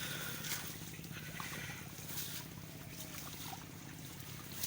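Small boat engine running steadily at low speed, a low pulsing hum, with a few light splashes of water.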